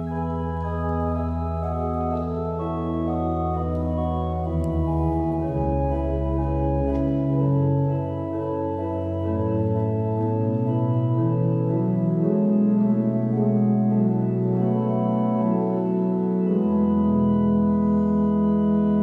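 Church organ playing slow, sustained chords over a held deep bass line, the chords changing every second or two. The deepest bass drops out for several seconds in the middle and comes back near the end.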